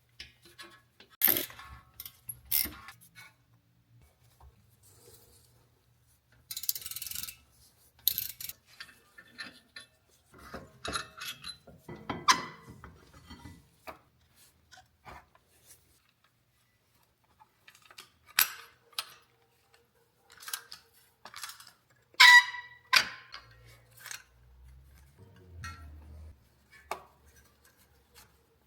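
Scattered metallic clicks, taps and clinks of hand tools and brake parts being handled while the rear brake pads are taken out of the caliper. A short hiss comes about seven seconds in.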